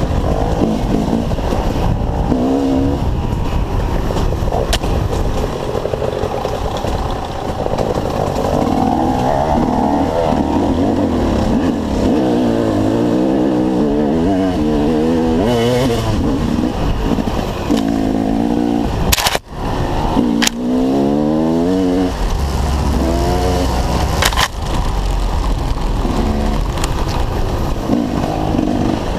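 Dirt bike engines running and revving, their pitch climbing and falling again and again as the throttle is worked.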